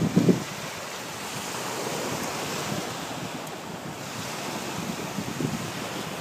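Small surf breaking and washing up a sandy shore, a steady hiss, with wind on the microphone adding a brief low rumble in the first half second.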